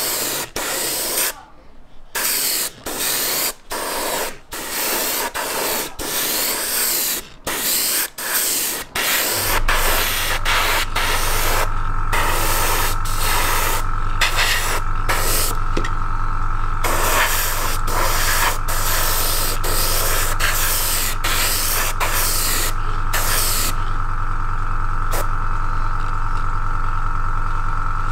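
Gravity-feed airbrush spraying thick Stynylrez primer, hissing in short on-off bursts at first, then more continuously; the primer spatters and struggles through the nozzle, which the modeller puts down to it having gone thick or to tip dry. About a third of the way in, a steady low motor hum starts and runs under the spraying.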